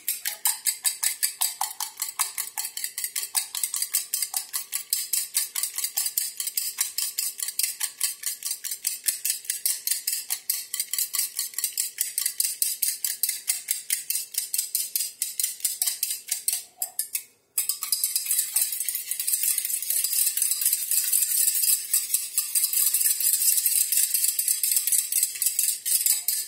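Wire whisk beating eggs and cream in a stainless steel pot, the wires clinking against the metal sides in a fast, even rhythm of about four strokes a second. It breaks off for a moment about two-thirds of the way through, then goes on more densely.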